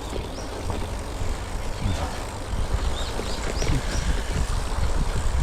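Steady low rumble of wind buffeting a helmet or handlebar microphone and tyres rolling over a dirt trail as an electric mountain bike is ridden, with a few short high chirps scattered through it.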